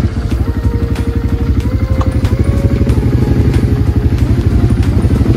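ATV engine running steadily while being ridden, a fast, even low pulsing.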